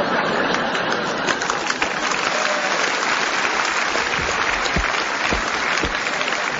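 Theatre audience applauding, loud and steady, at the end of a comedy sketch.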